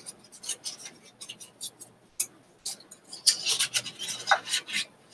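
Paper being torn and handled by hand for a collage: a run of short, dry crackles, sparse at first and thick and fast from about three seconds in.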